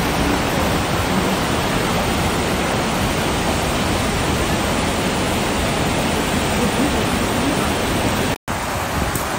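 Steady, loud rush of a large waterfall heard from close by at its brink. The sound cuts out completely for a split second about eight seconds in.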